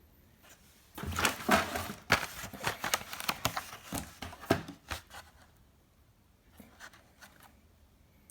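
Crinkling and clicking of packaged Hot Wheels cars, plastic blister packs on card backings, being handled and shifted in the box. It comes as a dense spell of about four seconds, followed by a few faint clicks.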